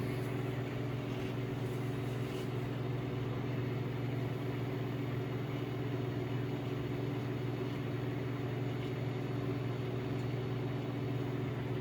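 Microwave oven running from an Inergy Kodiak portable power station's inverter: a steady electrical hum made of several low tones, with fan noise over it.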